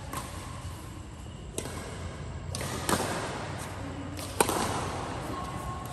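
Badminton rackets striking a shuttlecock in a rally: three sharp hits, about one and a half seconds apart, each ringing on in a large echoing hall. The last hit is the loudest.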